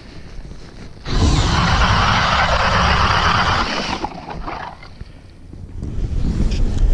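Cordless drill driving an ice auger through pond ice: it starts suddenly, runs steadily for about three seconds, then winds down. Wind buffets the microphone before and after.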